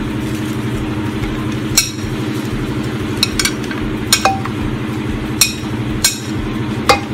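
Sliced carrots tipped off a ceramic plate into a slow cooker's crock, giving about eight light, sharp clinks and knocks of plate and slices against the crock. A steady low hum runs underneath.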